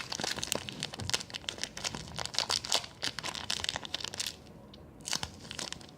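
A homemade squishy toy being squeezed and handled, crinkling in dense crackles with a short pause near the end.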